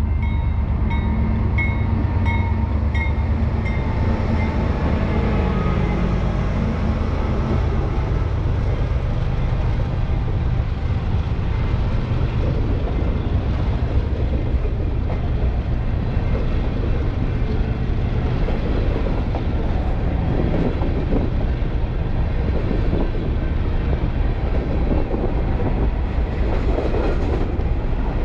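Freight train of covered hopper cars rolling past close by, a steady heavy rumble with wheels clacking over the rail joints. A grade-crossing bell dings about twice a second for the first few seconds, then fades out.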